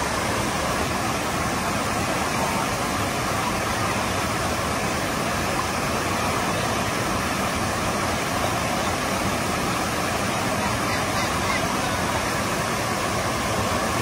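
River rapids: water rushing steadily down a short chute over smooth rock slabs, close by.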